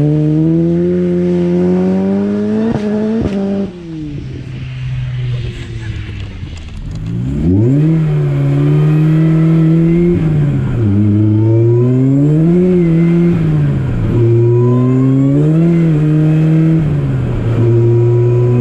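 Supercharged Opel Speedster engine revving hard, then cutting back abruptly about three and a half seconds in. After a few quieter seconds the revs climb again and are held high, rising and dipping repeatedly, with a thin supercharger whine rising alongside.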